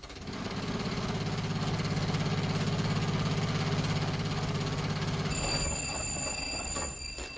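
Radio-drama sound effect of an old car's engine starting and running with a fast, even chugging that swells and then fades as the car drives off. Near the end a high steady ringing starts.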